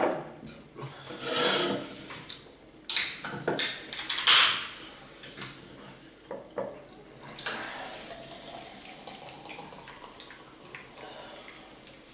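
A drinking glass set down hard on a wooden table, then aluminium soda cans clattering as one is picked up, followed by orange Fanta pouring steadily from the can into the glass.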